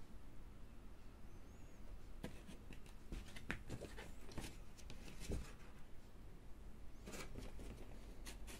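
Vinyl record jacket in its plastic wrap being handled, the plastic and cardboard crackling and rustling. The crackling comes in two spells, the second starting about seven seconds in.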